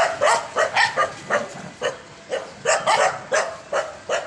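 Street dog barking in a quick series of about a dozen short barks, roughly three a second.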